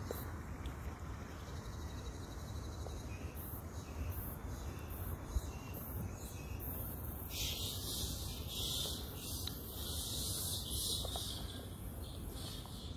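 Outdoor woodland ambience, with a high, steady buzzing hiss of insects that grows louder from a little past the middle and eases off near the end. There is one soft knock about five seconds in.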